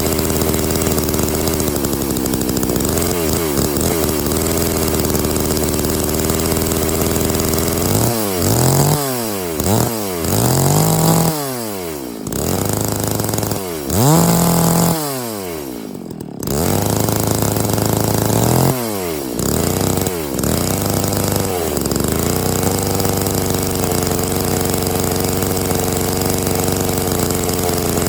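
Stihl MS660 two-stroke chainsaw, fitted with a 64-inch lo pro milling bar, idling and then revved up repeatedly in short bursts through the middle before settling back to a steady idle. It is being run up to get oil onto the new bar and chain.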